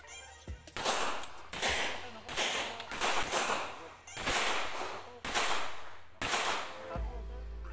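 Handgun shots fired in a steady string, about seven sharp cracks spaced roughly a second apart, each trailing off in a short echo.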